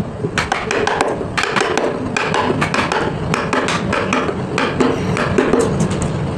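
Repeated hammer taps on wood, several a second at an uneven pace, as in hand carving a design into wood.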